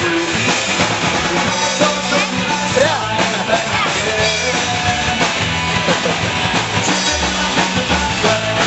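A live rock band playing, with a drum kit and a singer, loud and continuous.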